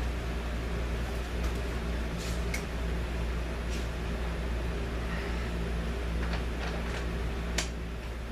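Steady low hum with a scattering of light clicks and knocks, the sharpest near the end, as video lights are moved back. The 1981 Casablanca Zephyr ceiling fan is coasting down after being switched off and makes no spin-down noise of its own.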